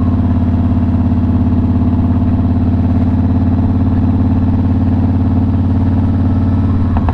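Victory Hammer motorcycle's V-twin engine running at a steady, even speed while cruising, in what the rider believes is third gear.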